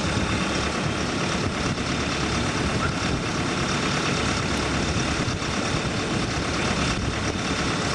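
Engine of heavy excavation equipment running steadily at idle.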